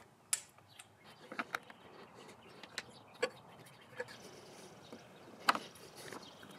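Hand tools working on a motorcycle's engine drain plugs: a scattered series of light, sharp clicks and knocks, about seven, over faint background noise.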